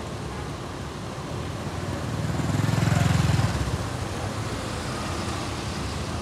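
A motorbike passes close by, its engine swelling to a peak about three seconds in and then fading, over a steady hum of street traffic.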